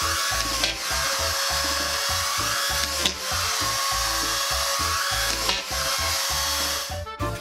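Corded DeWalt drywall screw gun running with a steady high whine, briefly broken three times as screws are driven into ceiling drywall; the tool stops near the end.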